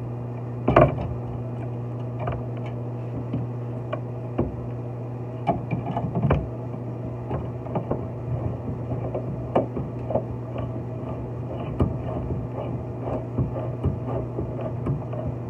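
Steady low hum with scattered light clicks and knocks, the loudest about a second in.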